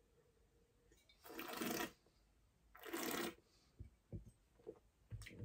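A taster slurping red wine, drawing air through a mouthful twice about a second and a half apart, each an airy slurp of about half a second, followed by a few soft mouth clicks near the end.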